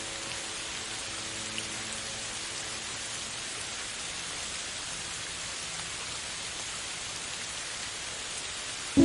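A steady, even hiss like falling rain, with faint sustained music notes dying away in the first second.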